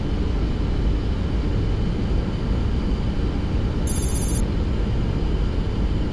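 Steady low rumble of airflow and engines inside a Boeing 737-800 cockpit on final approach. A brief high-pitched electronic chime about four seconds in.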